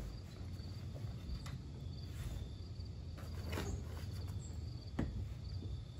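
Crickets chirping in a steady, regular pulse, a little under two chirps a second, over a low outdoor rumble. A few brief knocks and rustles come from the rigging and sail being handled, the sharpest about five seconds in.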